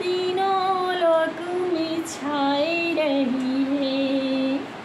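A woman singing a Hindi devotional bhajan unaccompanied, drawing out long held notes, with the voice stopping just before the end.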